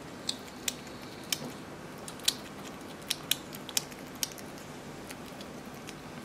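A hedgehog chewing food, making about eight sharp, irregular crunching clicks that thin out in the second half.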